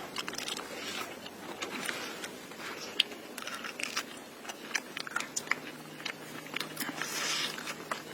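Close-miked eating: chewing and biting with many crisp crunches and crackles.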